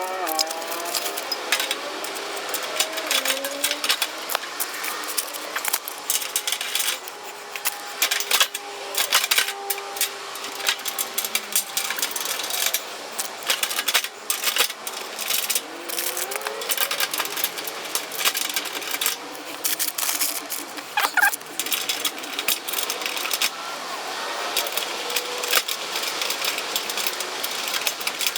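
Irregular clicks, knocks and rattles of raised garden bed parts being handled and fitted together during assembly.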